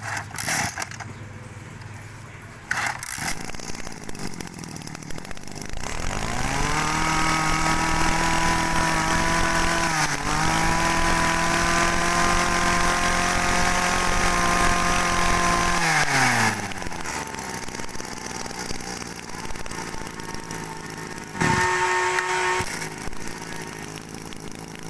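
Kioritz 24cc two-stroke brush cutter engine pull-started, catching about three seconds in. It idles, revs up about six seconds in and holds a steady high speed for about ten seconds, then drops back to idle, with one short rev near the end.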